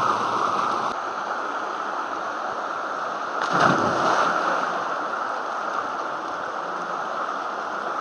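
Waterfall rushing in a steady, even wash of water noise, swelling briefly about three and a half seconds in.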